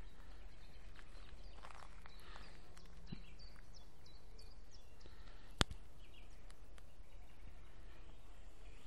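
Steady outdoor background noise with faint small-bird chirps, and one sharp click a little after halfway.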